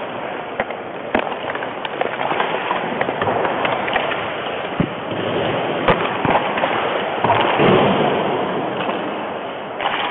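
Ice hockey skates scraping and carving on the ice, with a stick clacking against the puck, picked up by a helmet-mounted camera: a dense rushing noise with sharp clacks scattered through it.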